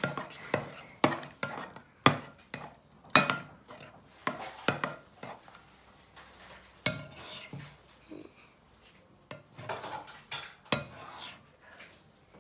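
Metal spoon stirring thick homemade glue slime in a mixing bowl, knocking and scraping against the bowl's side at irregular intervals, some knocks ringing briefly.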